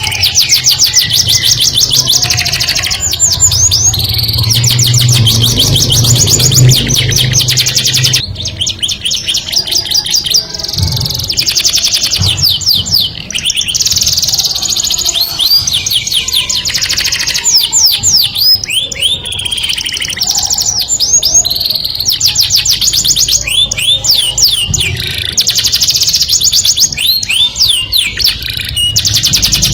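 Canary singing a long song of fast trills and rolls: rapid runs of repeated high notes alternating with phrases of downward-sweeping notes, with short breaks between phrases. A steady low hum sits beneath the song.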